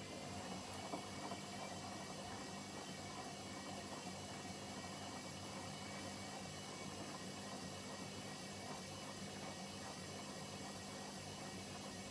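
Hoover H-Wash 300 washing machine running with a steady whirring hiss and a low hum.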